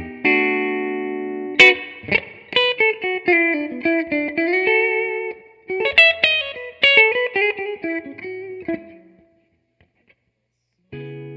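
Electric guitar played clean through a Fender Blues Deluxe Reissue tube amp with its stock speaker: a ringing chord, then a single-note lick with bends and vibrato. It stops about nine seconds in, then a chord starts again near the end.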